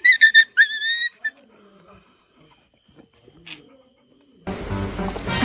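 A dog whining in a few short, high-pitched cries during the first second or so, then quiet. Background music starts near the end.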